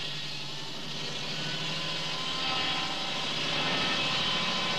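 Circular saw running and cutting through timber: a steady whine with a hiss, growing slightly louder partway through the cut.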